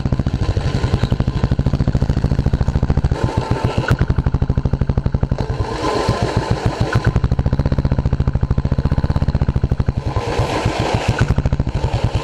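Royal Enfield Classic 350's single-cylinder engine running with a steady, rapid train of exhaust beats.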